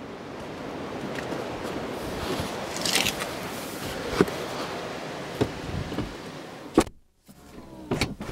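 Cabin noise of a moving 2011 Bentley Continental Supersports: a steady rumble of road and wind noise, with a few sharp knocks. It breaks off briefly near the end.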